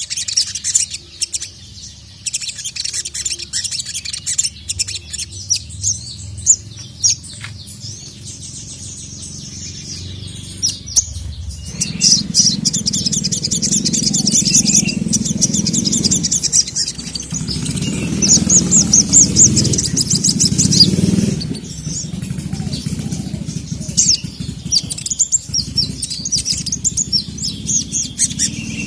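Sogon (sogok ontong) sunbird singing: fast, high chirps and trills in repeated runs. A low rumble sits underneath from about the middle on.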